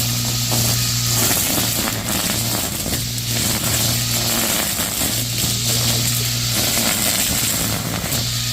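Homemade battery-powered grass cutter running, a steady low motor hum under a loud crackling hiss; the hum drops out and comes back several times.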